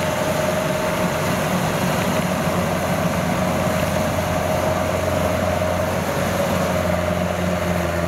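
Kubota rice combine harvester running steadily as it cuts and threshes rice: an even engine hum with a steady higher tone riding over it.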